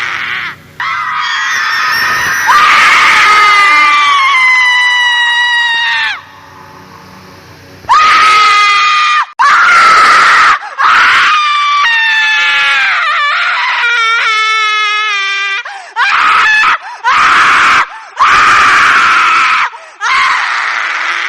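Horror-ringtone sound effect of a woman's shrill, ghostly screaming in the manner of a chudail (witch-ghost). A long shriek slides down in pitch, then stops for about two seconds. A run of high cries follows, one of them quavering, and then several shorter shrieks.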